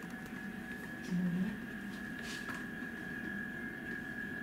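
Coffee-shop room tone: an indistinct murmur of voices under a steady high-pitched hum, with a brief low voice about a second in and a faint clink a little past two seconds.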